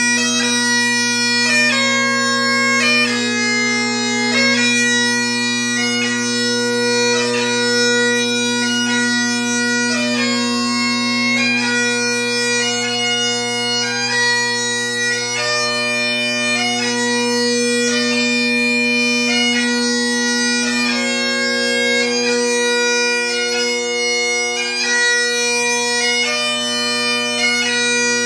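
Great Highland bagpipe playing piobaireachd: a slow chanter melody of long held notes over the steady, unbroken hum of the drones.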